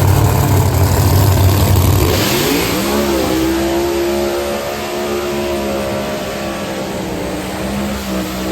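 Drag-racing car engine running: a deep steady note for about two seconds, then rising in pitch as it revs up and holding a steady higher note.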